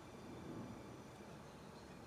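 Quiet room tone with faint steady hiss and a brief, faint low swell about half a second in.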